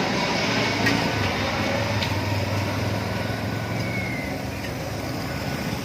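Airplane engine noise: a steady rush with a low hum underneath, slowly fading away.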